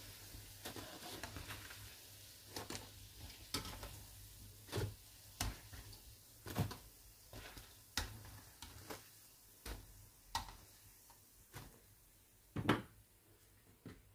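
Metal kitchen tongs clicking and tapping against a frying pan as pieces of fried dough are lifted out of hot oil, over a faint sizzle of the oil. The taps come irregularly, roughly one a second, with the loudest near the end.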